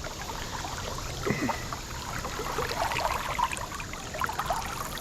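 Creek water babbling and trickling, with a steady rush and many small irregular gurgles.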